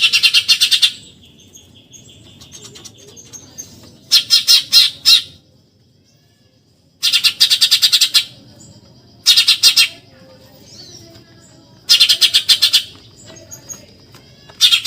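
Eurasian tree sparrow giving loud, shrill chattering bursts: rapid rattles of high notes, each about a second long, repeated six times with pauses of a couple of seconds between. Faint thin high notes carry on in the pauses.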